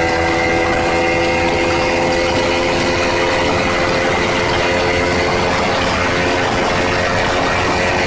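Honda CBR motorcycle engine running at high revs in sixth gear on a top-speed run, a steady engine drone with a steady rushing noise over it.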